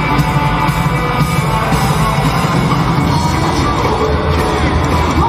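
Live rock and roll band playing loud and steady, with upright double bass, drum kit and electric guitar, amplified through a PA.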